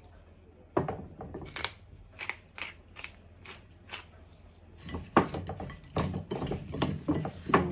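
Hand-twisted salt and pepper grinders crunching out seasoning, a rhythmic click about three times a second. From about five seconds in, chunks of pumpkin and sweet potato are tossed by hand in a baking dish, knocking and rattling against it.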